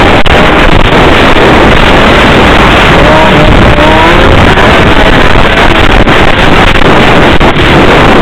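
Snowmobile under way on a trail: the engine running, with heavy wind rushing over the microphone. The recording is very loud and distorted, with a few short rising tones from the engine about three to four seconds in.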